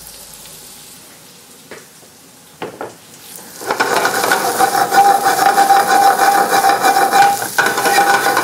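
Diced apples, shallots and garlic sizzling in clarified butter in a skillet, quiet with a few light clicks at first. About four seconds in the pan is shaken back and forth over the burner grate, and a loud rhythmic metal-on-metal scraping and sizzle of tossed food runs to the end.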